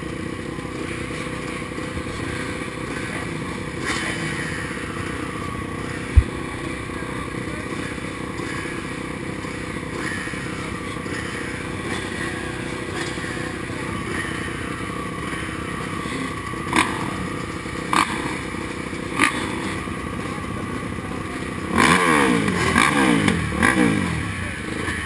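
Several dirt bike engines idling together at a motocross starting gate, a steady mixed drone. There is a sharp thump about six seconds in and a few sharp knocks later on. Near the end an engine revs up and down a few times.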